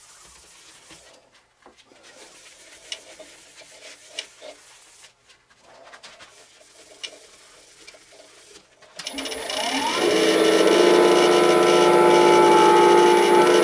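Light handling clicks and rubbing, then about nine seconds in a wood lathe's motor spins up with a rising whine and runs at a steady speed.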